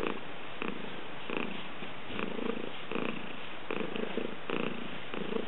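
A domestic cat purring steadily, the purr swelling and easing in a regular rhythm a little more than once a second.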